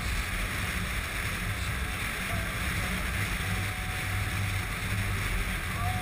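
Steady wind rush over the action-camera microphone, with the low drone of a Honda RC51's V-twin engine cruising at an even speed.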